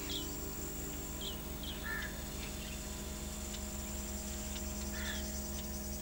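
Insects trilling steadily, with a few short, high bird chirps that drop in pitch, over a steady low hum.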